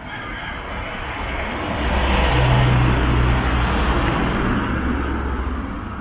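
A motor vehicle passes close by. Its engine hum and road noise swell over the first two seconds, peak, then fade away.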